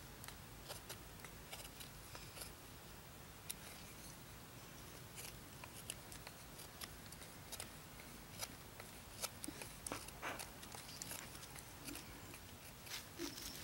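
Bark River Bravo 1.5 knife shaving wood as a bow-drill spindle is whittled to a point: faint, irregular short scraping clicks of the blade cutting into the stick.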